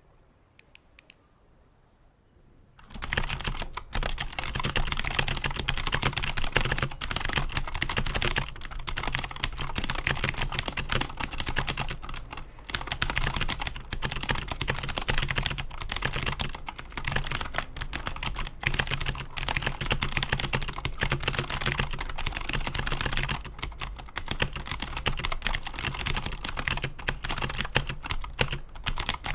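Keychron C2 full-size mechanical keyboard with clicky Gateron Blue switches being typed on quickly and continuously, starting about three seconds in after a few faint clicks.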